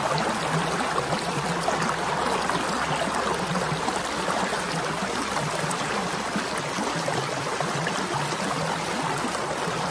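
Small rocky creek rushing and gurgling over stones in a shallow run, a steady watery rush with no letup.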